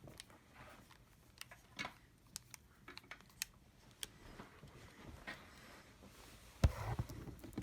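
Scattered small clicks and taps of a laptop being handled, with one louder knock near the end.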